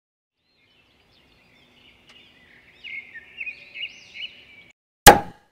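Bird-like chirping, high and quiet, for a couple of seconds, then a single loud, sharp hit about five seconds in.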